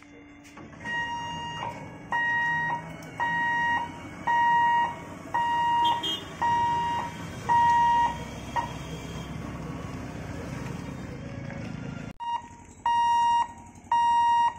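Level-crossing warning buzzer beeping in a steady pattern, about one half-second beep a second, warning that the gate is closing for a train. A low steady rumble runs underneath. About twelve seconds in the beeping breaks off briefly, then starts again.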